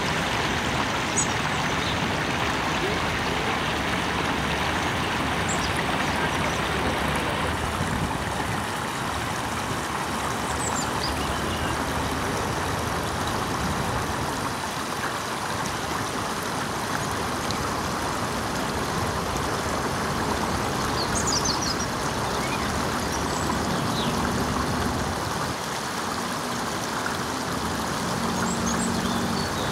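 Steady rush of water flowing along a shallow concrete channel, with a few brief high chirps scattered through it and a faint low hum in the last few seconds.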